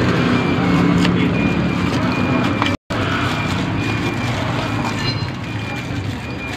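A nearby vehicle engine running steadily with a low hum, while plastic packaging is handled and crinkled. The sound drops out completely for a moment about three seconds in.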